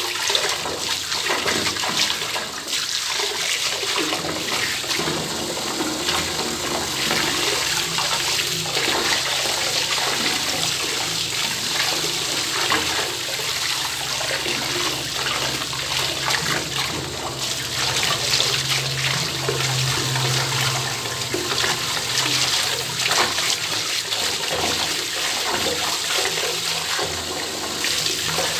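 Bathtub tap turned fully on, water pouring steadily into the tub with an even rushing hiss. A low hum runs underneath and grows louder for a few seconds just past the middle.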